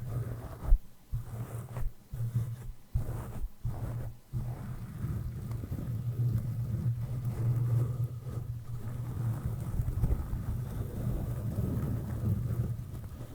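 A soft brush stroking over the microphone, giving a muffled low rumbling swish. Short separate strokes at first, then continuous brushing from about four seconds in.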